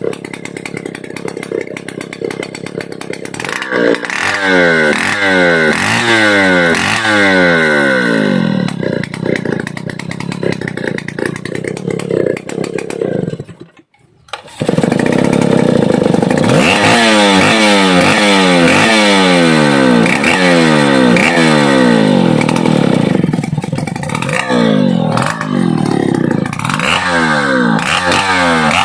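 Stihl 070 chainsaw's large single-cylinder two-stroke engine running and being revved in repeated throttle blips, the pitch rising and falling each time, with a brief break about halfway through.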